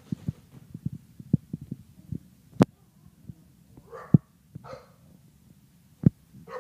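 Boxer dogs at play with a balloon: a scatter of sharp thumps and knocks, with two or three short, breathy barks from about four seconds in.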